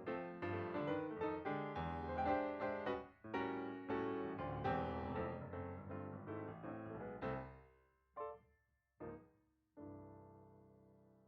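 Background piano music: a run of notes that thins out after about seven seconds into three single struck notes, the last left ringing and fading away.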